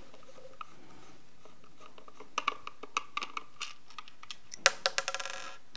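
Small Phillips screwdriver loosening the battery-compartment screw in a plastic SimpliSafe base station: scattered light clicks and scrapes, then a quick run of fine ticks near the end.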